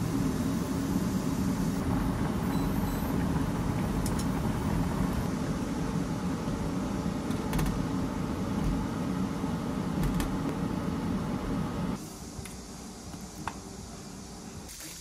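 Pot of beef, kelp and green onion at a hard boil on an induction cooktop: a steady, loud rushing bubble, with a few light clicks of chopsticks against the pot. It cuts off suddenly about twelve seconds in, leaving quiet room noise.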